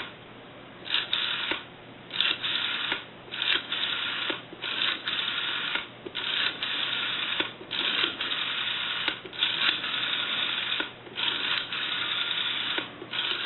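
Rotary dial of a Wedgewood desk telephone being wound and released digit after digit. Each release gives a short whirring, clicking return as the dial pulses out a digit, about nine or ten in a row with short pauses between.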